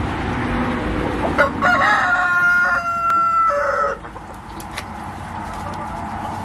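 Rooster crowing once: a single long cock-a-doodle-doo about a second and a half in, held through the middle and dropping in pitch at the end.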